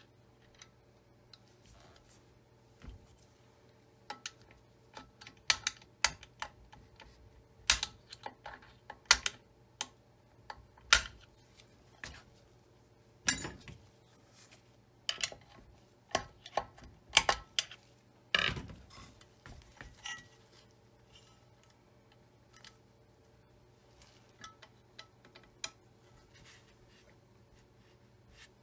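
Irregular metallic clicks, taps and clanks of a screwdriver and loose parts against the cast-aluminium body of a Singer Featherweight 221 sewing machine as it is dismantled, the loudest knocks coming in the middle stretch.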